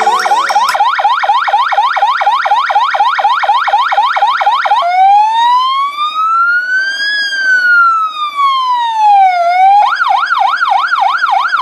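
Fire engine's electronic siren changing through its tones. First comes a fast rising yelp, about four sweeps a second. Just under halfway it switches to one slow wail that rises and then falls, and near the end to a quick up-and-down warble.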